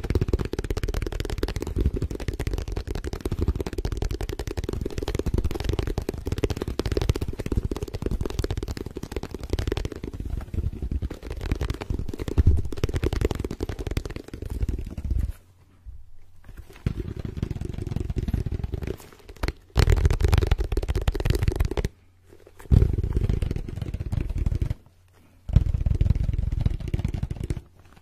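Very fast fingertip tapping and scratching on a soft, dark object held right at the microphone, a dense, dull patter. It breaks off briefly several times in the second half.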